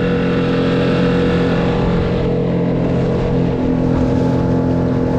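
Small skiff's outboard motor running steadily at trolling speed, with water rushing and splashing along the hull.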